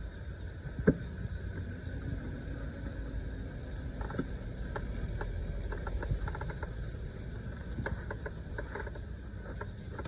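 Handling noise from an awning being folded and packed away: scattered light clicks and knocks of the frame and fittings, with a sharper knock about a second in, over a steady low rumble.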